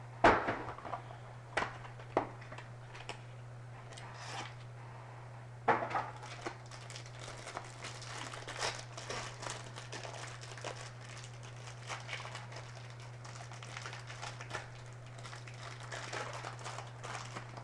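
A few sharp knocks as a trading-card box is handled, then from about six seconds in a long run of crinkling as the clear plastic shrink-wrap is peeled off the box, over a steady low hum.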